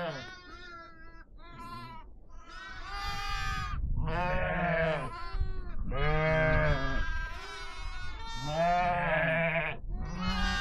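A herd of sheep and goats bleating: one call after another, some overlapping, several animals calling at different pitches.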